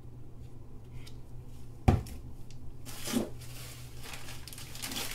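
A plastic cup knocks down on a work table about two seconds in, followed by rustling and handling noise from gloved hands and a towel, over a steady low hum.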